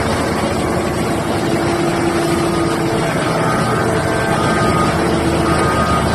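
Liebherr R9800 mining excavator's diesel engines running under load: a steady, heavy drone with whining tones over it that come and go and shift slightly in pitch.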